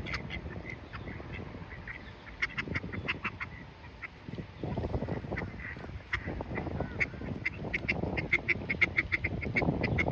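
Ducks quacking, with runs of short high-pitched chirps repeating quickly, thickest in the second half.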